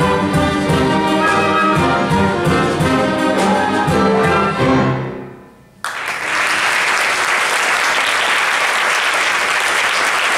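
Orchestra playing the final bars of a piece, its closing chord fading away about five seconds in. Just under a second later audience applause breaks out suddenly and continues steadily.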